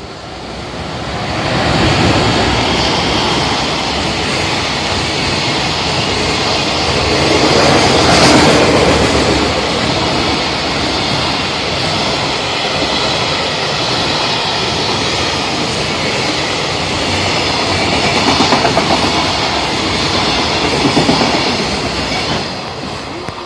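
EF210 electric locomotive hauling a long container freight train past at speed. The locomotive passes about two seconds in, followed by the steady rush and rattle of container wagons, with a rhythmic wheel beat late on. The sound fades near the end as the last wagons draw away.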